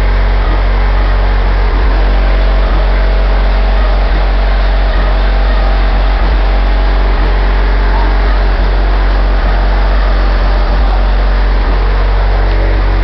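Competition car-audio subwoofer system in a pickup truck playing deep, steady bass at extreme volume, metered above 150 dB. The bass overloads the camera's microphone and comes through as a constant distorted drone.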